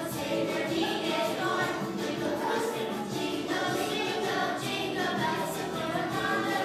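Choir singing, heard from among the audience seats.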